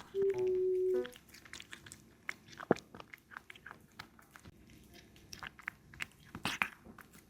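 A kitten chewing and biting raw meat close to the microphone: many irregular wet clicks and crunches. A short steady electronic beep tone sounds in the first second.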